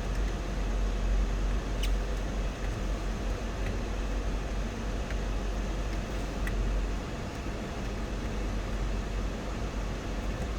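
The 2004 Lexus GX 470's 4.7-litre V8 idling steadily, with the hiss of the heater blower, heard inside the cabin. A few faint clicks come through about two, three and a half, five and six and a half seconds in.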